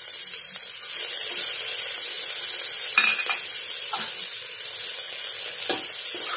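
Onion, mustard seeds, urad dal and freshly added curry leaves sizzling steadily in hot ghee in a pressure cooker. A ladle scrapes against the cooker's base a few times, about three seconds in and again near the end, as it stirs the tempering.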